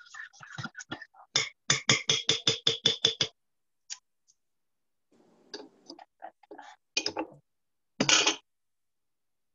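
A stirring utensil knocking rhythmically against a mixing bowl as cake batter ingredients are stirred, about five clinks a second, stopping a little over three seconds in. A few scattered knocks and clinks follow, the loudest about eight seconds in.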